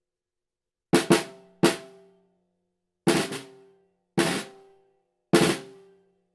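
Snare drum struck six times: a quick pair of hits about a second in and a third just after, then three single hits about a second apart, each ringing out briefly.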